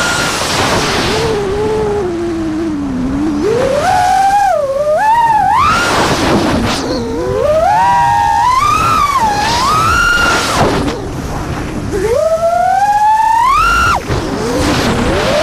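FPV quadcopter's electric motors and propellers whining, the pitch rising and falling with throttle changes; near the end it plunges sharply as the throttle is chopped, then climbs again.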